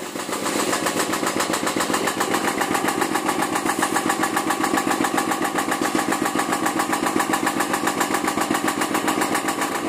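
Kingstone 10 hp single-cylinder diesel engine running on test, building up over the first second and then settling into a steady, rapid, even chugging.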